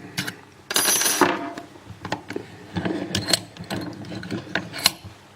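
Small metallic clicks and rattles from a just-picked-open 7-pin dimple lock and its picking tools being handled, with a louder scrape about a second in.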